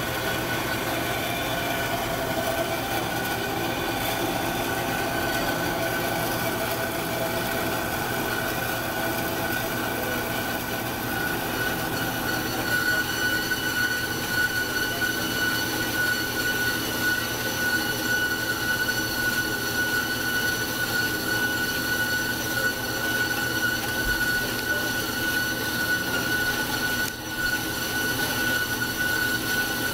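1997 Marvel MV460 APC tilt-frame vertical band saw cutting through rectangular steel tubing at an angle: a steady metallic grind with a high, squealing tone from the blade that grows stronger a little before halfway through.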